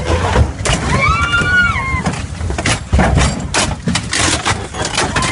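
Knocking and rattling in an open safari vehicle as an elephant closes in, over a low rumble, with one long high cry that rises and falls about a second in.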